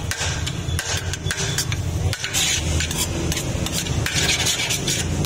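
A metal serving scoop scraping and clinking against the inside of a large aluminium pot as biryani rice is dug out: many short clinks, with two longer scrapes about halfway through and near the end. A steady low hum runs underneath.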